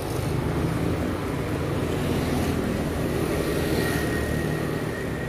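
Road traffic passing close by: motorbike and car engines running with a steady low hum and road noise, and a faint high whine coming in about three and a half seconds in.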